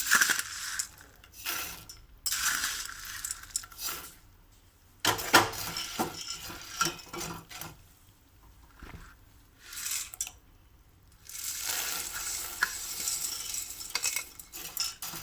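A metal spoon stirring fried boondi into hot sugar syrup in a pan, scraping and clinking against the pan in bouts with short pauses between.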